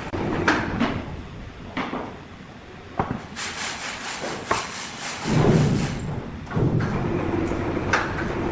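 Sawmill machinery running with a steady hum, wooden knocks and clatter of timber being handled, a hissing stretch in the middle and a heavy thud about five and a half seconds in.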